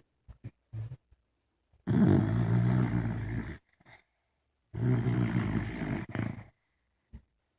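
Loud snoring: two long snores of nearly two seconds each, about three seconds apart, with a few short faint snorts between them.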